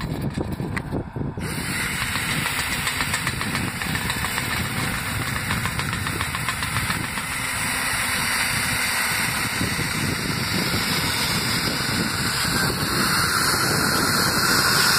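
Electric drill spinning a rotary dryer-vent cleaning brush on linked rods inside the vent duct, with a vacuum running. There is a steady motor whine with scraping, and a hiss comes in about a second and a half in as the brush starts turning.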